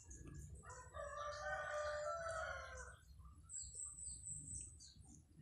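A rooster crowing: one long call of about two seconds, held at one pitch and dipping slightly at the end.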